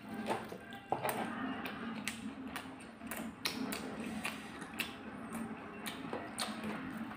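Close-up eating sounds: irregular wet clicks and smacks of mouths chewing fried omelette and instant noodles.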